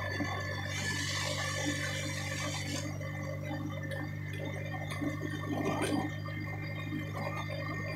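Steady engine hum and road noise heard inside a moving vehicle's cabin, with a couple of light knocks or rattles.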